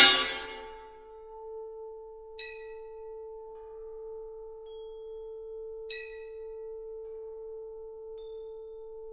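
Orchestra playing sparse contemporary music: a sharp, bright metallic strike at the start, then a steady held tone with a fainter higher one above it, broken by two brief bell-like strikes, about two and a half seconds in and again near six seconds.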